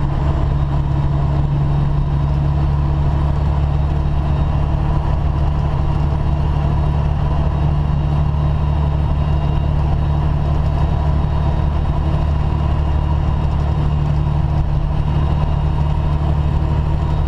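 Semi truck's diesel engine running steadily, a constant low drone with no change in pitch or level.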